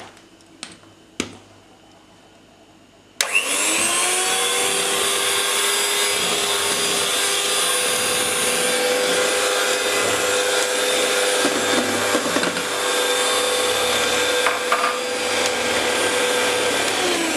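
A few light clicks, then about three seconds in an electric hand mixer switches on and runs steadily with a whine, its beaters mixing cake batter as flour is added little by little.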